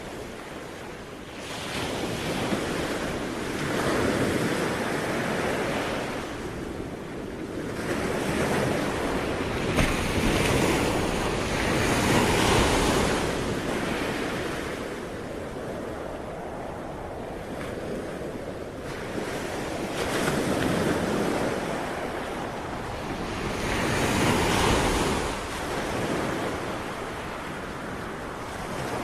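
Ocean waves breaking and washing on the shore, the surf swelling and ebbing in slow surges every few seconds, with some wind.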